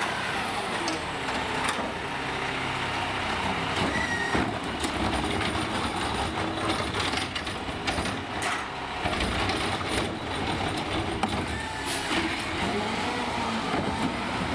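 Peterbilt McNeilus ZR automated side-loader garbage truck running, with scattered knocks and clanks and a brief squeal about four seconds in.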